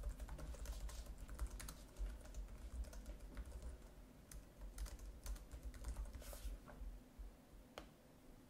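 Typing on a computer keyboard: quiet, irregular key clicks, thinning out near the end, over a low steady hum.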